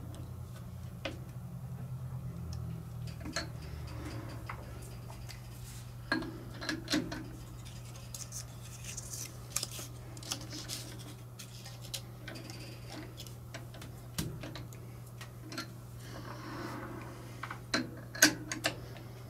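Scattered light metallic clicks and clinks of hand work at a lathe's four-jaw chuck, handling the workpiece, jaws and tools, over a steady low hum. A couple of sharper knocks come near the end.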